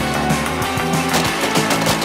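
Loud rock music with a driving drum beat.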